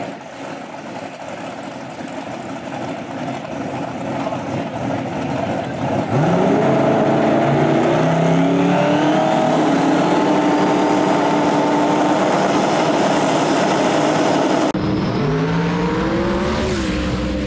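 Drag-race car engines at the start line, rumbling and then revved hard about six seconds in, their pitch climbing and then holding high and steady while the cars sit staged. A sudden break comes near the end, followed by another climb in revs.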